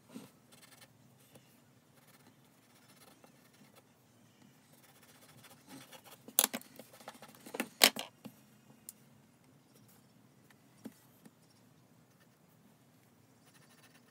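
Faint scratching of a graphite pencil on paper. About six seconds in, a two-second cluster of sharp clicks and taps breaks in as the drawing sheet and pencil are handled on the desk.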